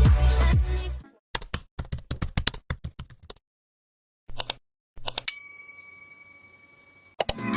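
Rapid computer-keyboard typing clicks for about two seconds, then a short burst of a few more keystrokes, followed by a single bell-like ding that rings on and slowly fades. Music cuts out about a second in and comes back near the end.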